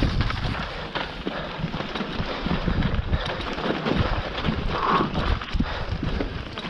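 Mountain bike descending a loose, rocky trail at speed: tyres crunching over stones and the bike rattling and knocking over every bump.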